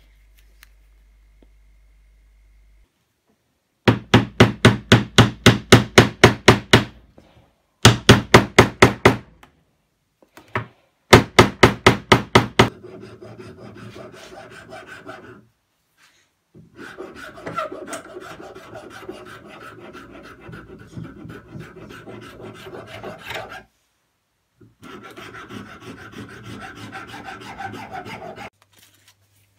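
Hand file scraping back and forth over a wooden knife handle in quick strokes, about four a second. Three loud runs come a few seconds in, then softer, steadier filing continues with short breaks.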